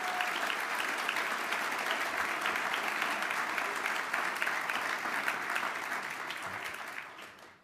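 An audience applauding: many hands clapping in a dense patter that dies away near the end.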